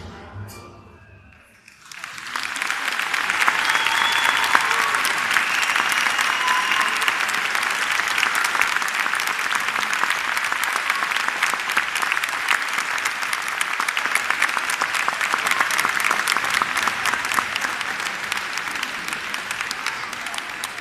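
The dance music ends, and about two seconds in an audience breaks into applause that carries on, easing a little near the end.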